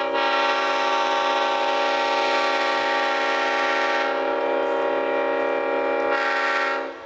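Leslie five-chime train horn blowing one long chord for about seven seconds, then cutting off. Its bright upper notes fade about four seconds in and come back briefly just before it stops.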